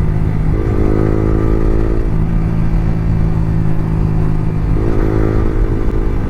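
Yamaha R15 V3's 155 cc single-cylinder engine running through an Akrapovic R9 exhaust with no dB killer, heard from the riding bike. The engine note rises twice, about half a second in and again near five seconds in, then settles back.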